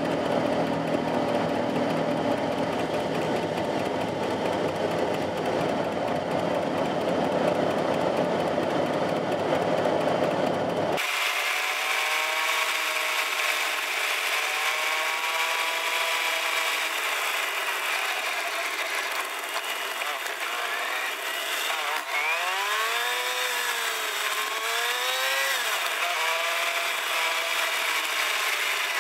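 Air-cooled two-cylinder engine of a 1969 Fiat 500 running on the move, heard from inside the cabin. About eleven seconds in, the sound turns abruptly thinner and higher, with the revs rising and falling quickly, as in fast-forwarded footage.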